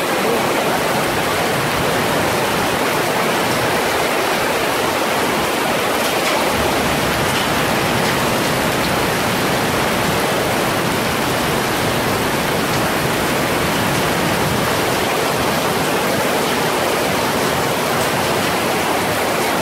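Heavy rain pouring down on a paved street and road: a loud, steady, even hiss.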